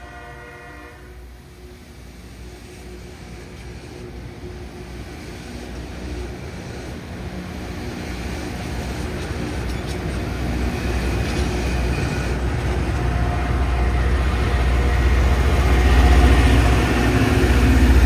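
Loram rail grinder train approaching. A horn blast trails off about a second in, then its low rumble and noise grow steadily louder.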